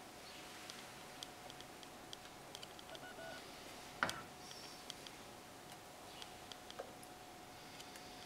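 Faint clinks of a ladle against a stainless saucepan and small ceramic bowls as custard is ladled out, with one sharper clink about four seconds in, over a faint steady hum.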